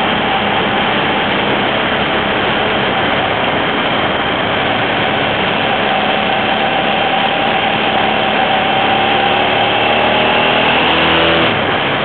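Hyosung GT650 Comet's V-twin engine running at road speed under a steady rush of wind noise on the microphone. The engine note grows clearer near the end.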